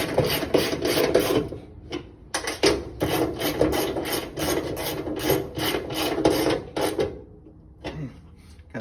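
Hand ratchet clicking rapidly as bolts are run down by hand, stopping about seven seconds in.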